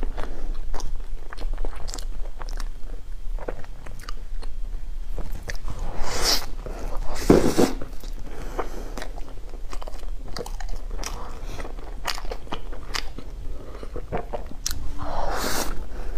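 Eating a chocolate bread roll: steady chewing with many small mouth clicks, and louder bites about six and seven seconds in and again near the end.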